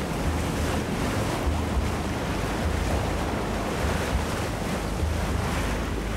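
Wind buffeting the microphone over choppy open sea, with waves splashing. It is a steady rush with uneven low rumbling gusts.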